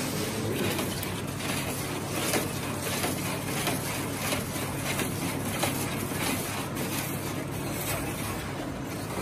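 A long metal stirring paddle scraping and knocking in a large steel pot of chickpea curry, giving irregular clicks over a steady low rumble.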